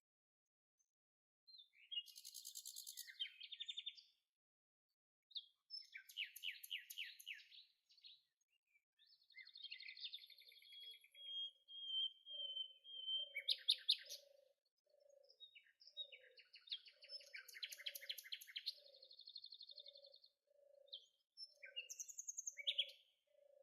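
Several songbirds singing and calling in short phrases of chirps and fast trills, one holding a steady high whistle for a couple of seconds near the middle. From about halfway on, a low soft note repeats steadily underneath, about one to two times a second.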